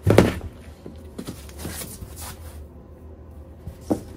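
Packaging being handled: a loud knock right at the start as the desk's top panel is lifted out of its cardboard box, then foam packing sheet and cardboard rustling and scraping, with a sharp click near the end.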